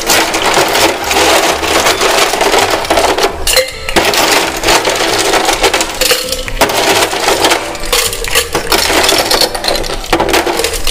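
Ice cubes clattering into a metal cocktail-shaker tin as it is filled with ice, in three long runs of scooping broken by short pauses about four and six and a half seconds in.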